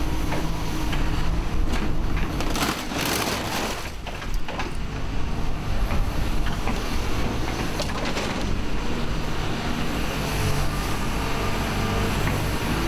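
Hyundai HX180 excavator's diesel engine running steadily under hydraulic load while the grab crunches and scrapes the metal of a scrap car. The loudest crunching comes a few seconds in, with more about two-thirds of the way through.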